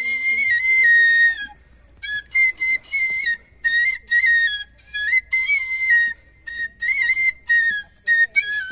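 Small bamboo flute (banshi) playing a high folk melody in short phrases, stepping quickly between notes with brief pauses between phrases.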